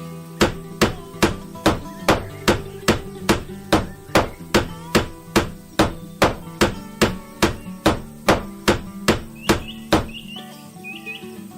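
A steady run of hammer strikes, about two and a half a second, that stops abruptly about ten seconds in, over background music.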